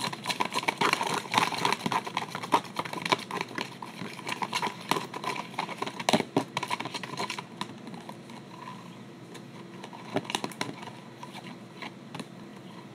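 A fork stirring glue and green food colouring in a cup: rapid clicking and scraping that thins out about seven seconds in, followed by a few scattered taps.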